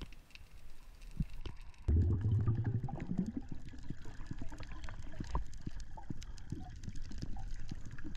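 Underwater sound along a rocky reef: many scattered sharp clicks and crackles, and from about two seconds in a loud low rush and gurgle of water surge that settles into a steady low wash.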